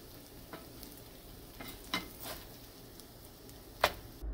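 Scrambled eggs sizzling quietly in butter in a nonstick frying pan, with a slotted spatula scraping and tapping against the pan a handful of times, the sharpest stroke near the end.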